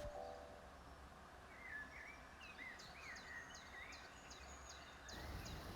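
Faint outdoor ambience with small birds chirping: a few warbling notes, then a run of short high repeated notes, about two a second.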